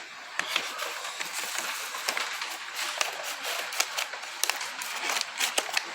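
Cardboard and plastic packaging rustling and crinkling, with many small clicks, as a small toy box is opened by hand.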